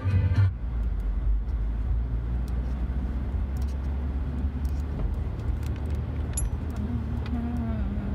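Steady low road and engine rumble heard from inside a moving car's cabin, with scattered light clicks. A brief louder pitched sound comes right at the start.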